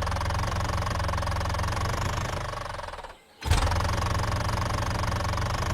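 Tractor engine sound effect running with a steady fast chug. It fades out about three seconds in, then starts again abruptly.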